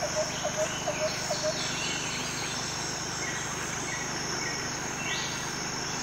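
Water trickling and splashing over the rocks of a small artificial stream and waterfall, a steady hiss. Birds chirp over it, and a quick run of short low notes, about four a second, sounds in the first second and a half.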